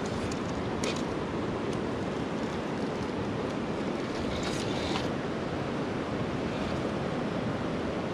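Fast-flowing river rapids rushing steadily, with a brief scrape about a second in and another around four and a half seconds.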